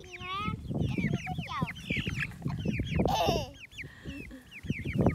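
Several young chicks peeping rapidly and continuously in short, high, down-sliding chirps, with low thumps underneath and one brief, harsher, louder burst about three seconds in.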